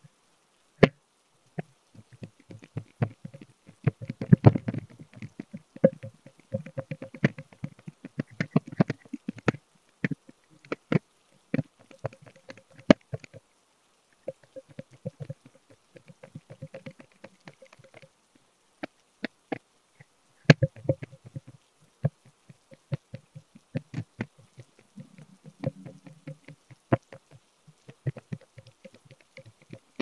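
Irregular clicks and knocks of handheld cupping cups with valve tops being placed, moved and lifted on a person's back.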